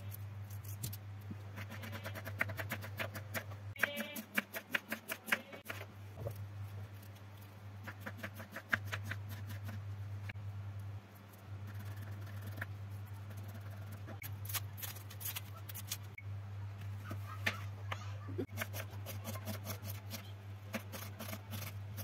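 Kitchen knife chopping vegetables on a wooden cutting board: runs of quick knife strikes against the board, coming in bursts with short pauses between, over a steady low hum.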